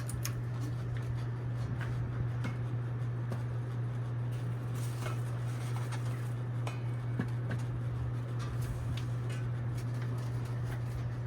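Westinghouse ceiling fan motor running on high speed, giving a steady low electrical hum with faint scattered ticks.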